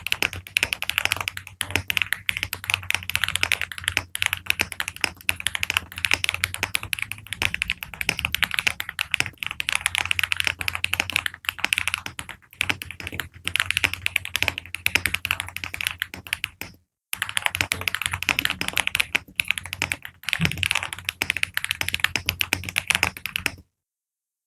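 Continuous typing on a mechanical keyboard with HMX Yogurt V2-S linear switches: a dense run of key strokes, cut off completely for a moment about two-thirds through and stopping abruptly shortly before the end.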